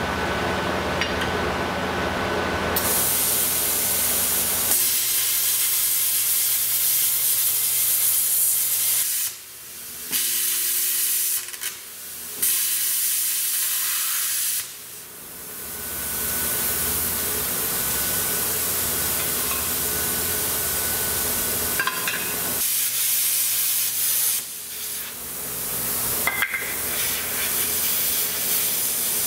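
Plasma cutter cutting steel plate: a loud, steady hiss of the arc and air that starts a few seconds in, breaks off briefly several times and starts again. Before it starts, only a lower hum is heard.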